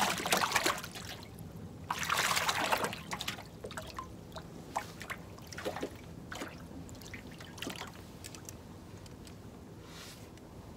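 Lake water lapping and trickling against the boat's hull, with a louder splashy rush about two seconds in and small ticks and drips after it.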